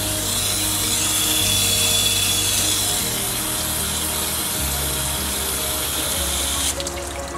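Water spraying from a garden hose onto a potted plant's leaves and soil, a steady hiss that cuts off suddenly near the end.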